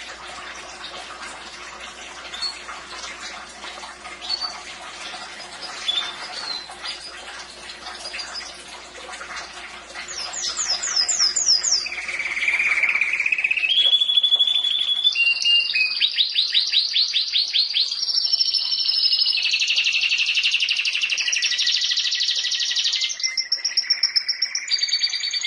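Canary singing. At first only scattered chirps and clicks; then, about ten seconds in, a loud continuous song of fast trills, rapid repeated notes and whistled tones.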